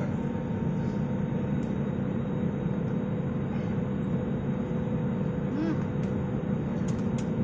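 Aeroplane's steady low drone, with a faint steady hum above it.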